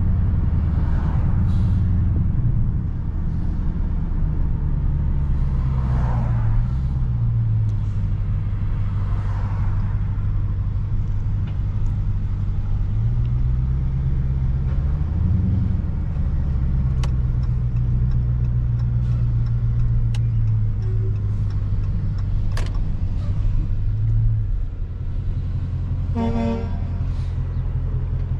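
2019 Dodge Charger Scat Pack's 6.4-litre HEMI V8 running steadily under way, its low exhaust drone shifting pitch a few times with throttle and gear changes. A short horn toot sounds near the end.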